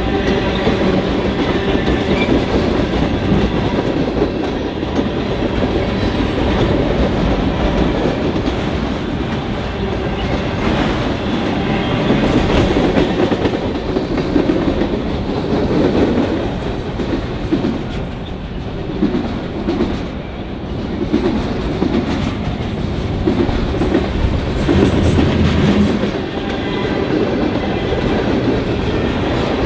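Freight train cars (tank cars, autoracks, a coil car) rolling past at close range: a steady rumble with the wheels clacking rhythmically over rail joints.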